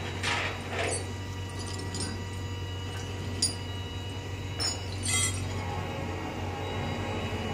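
Scattered metallic clinks and rattles of tow chains and hooks being handled at the front of a pickup truck, over the steady low hum of an idling rollback tow truck.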